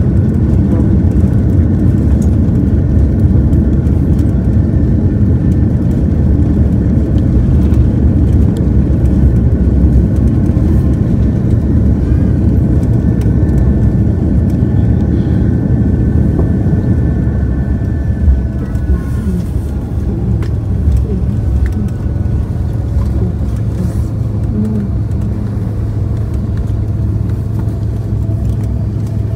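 Cabin noise of an Airbus A330-300 rolling out on the runway after landing: a loud, steady rumble with a faint high whine that fades out about two-thirds of the way through. The noise gradually eases as the airliner slows.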